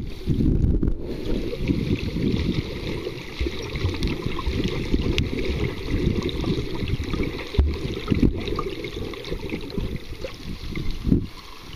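Uneven low rumble of moving seawater on the microphone, with a fainter hiss above it; it dies down near the end.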